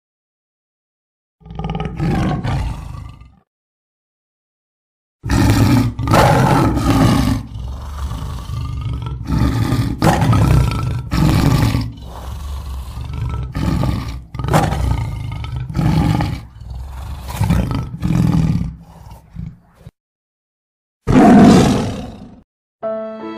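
Big-cat roar sound effects: one roar about two seconds in, then a long run of repeated roars and growls for about fifteen seconds, and a last loud roar near the end.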